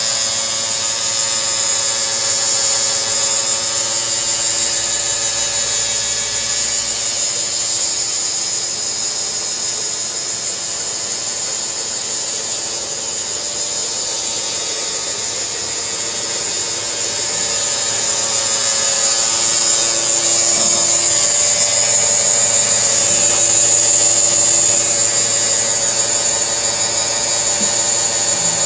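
Micro steel fiber machine running: a steady mechanical whir with a constant high whine, a little louder in the second half.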